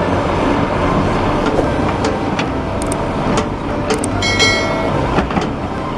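Heavy diesel machinery running as an excavator loads earth into a dump truck: a steady rumble with scattered clunks, and a brief high-pitched squeal a little after four seconds in.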